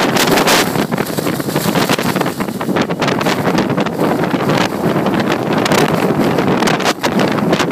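Hurricane-force wind of over 70 mph blowing hard in constant gusts and buffeting the microphone.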